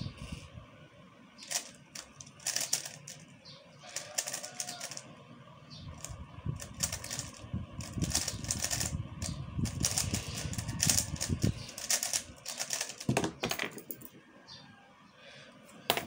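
3x3 speedcube being turned fast during a timed solve: rapid plastic clicking and clacking in dense flurries. The flurries stop about two seconds before the end, which is marked by a single sharp tap.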